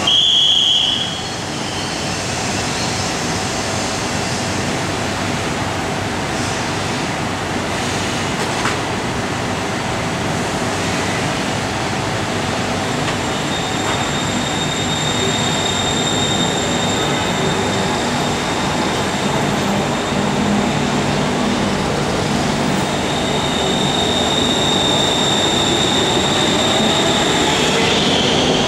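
A short high tone sounds for about a second at the start, then a six-car BTS Skytrain electric train pulls out of the elevated station. Its motors give a thin high whine that rises from about halfway in, over the steady rolling noise of the cars, growing gradually louder as the train passes.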